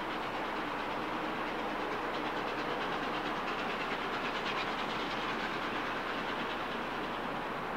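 Peppercorn A1 Pacific steam locomotive 60163 Tornado running with a train of coaches: a steady rail noise with the wheels clicking over rail joints.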